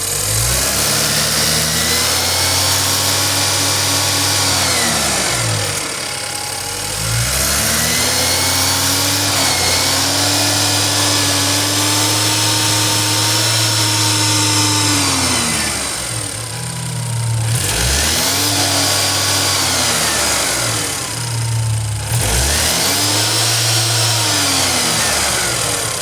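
BMW N20 2.0-litre turbocharged four-cylinder engine revved four times, each time rising, held for a few seconds (the second time for about nine), then dropping back to idle. Its mechanical noise is what the owner suspects may be timing chain noise, unsure whether it is normal.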